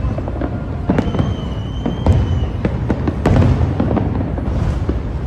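Fireworks going off: a continuous low rumble and crackle with a sharp bang about every second. A high steady whistle is heard from about one second in until halfway through.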